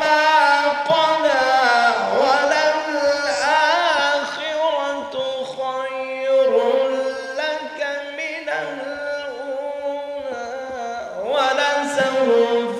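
A man reciting the Quran in the melodic, chanted tilawah style into microphones. He holds long notes with wavering ornaments, broken by a couple of short pauses.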